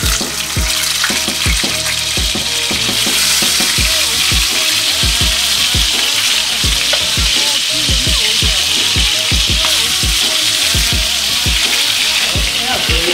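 Seasoned chicken drumsticks sizzling in hot olive oil in a frying pan, being browned. The sizzle grows louder about three seconds in as more pieces are laid into the pan.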